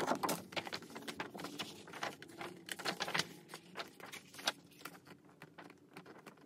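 Pages of a large, poster-sized photobook being turned carefully by hand: a run of short paper rustles and flicks, thinning out toward the end.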